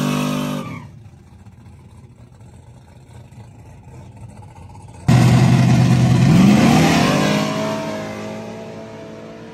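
Chevy II Nova drag car's engine held at high revs through a burnout, then dropping away within the first second. About five seconds in the engine comes back in suddenly and loud, rises in pitch once, then settles and fades as the car backs up toward the start line.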